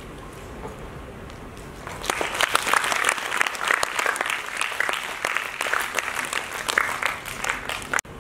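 Audience applauding, with dense hand-clapping starting about two seconds in and cut off abruptly near the end.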